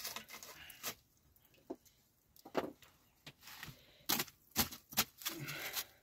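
A run of irregular sharp clicks and knocks, some close together and some spaced out, with a short rustling patch near the end.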